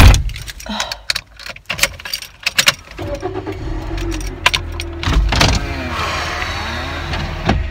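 A loud thump at the start, like a car door shutting, then a few seconds of clicks and key rattles. About three seconds in, a car engine starts and runs steadily.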